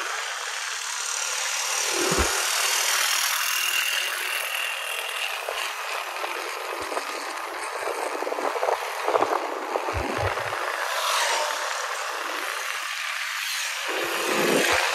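Riding a motorcycle: a steady rush of wind and traffic noise with the bike's small engine buzzing along, and a few low thumps about two seconds in, around ten seconds and near the end.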